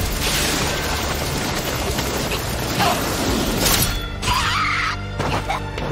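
Anime action soundtrack: a dense crash and rumble of impact effects over dramatic music as a character is struck. About four seconds in it thins out to the music with a brief sliding higher sound.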